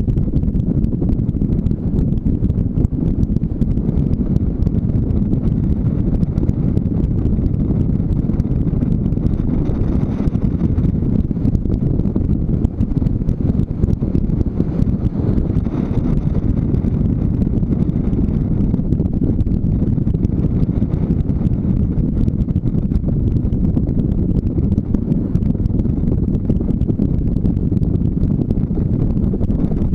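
Motorcycle riding at road speed: wind buffeting the microphone and the bike's engine blend into a steady low rumble.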